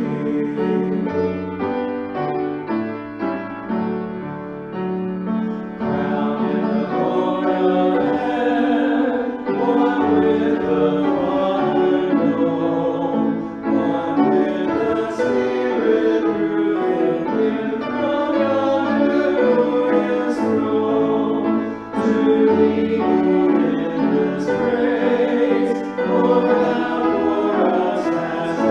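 A worship song sung by a small group of singers, a woman's and men's voices together, accompanied on grand piano.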